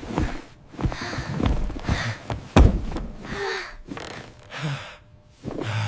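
Breathless gasps mixed with a few knocks and thuds, the sharpest about two and a half seconds in.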